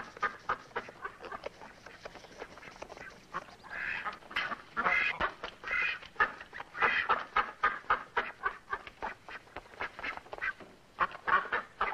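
Farmyard waterfowl quacking and honking in a rapid, repeated chatter of short calls, louder in clusters about four, seven and eleven seconds in.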